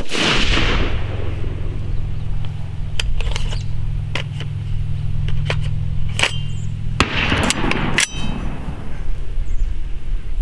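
A single AR-style rifle shot right at the start, with a short ringing echo. It is followed by a string of sharp metallic clicks and clangs, two of them ringing briefly, over a steady low rumble.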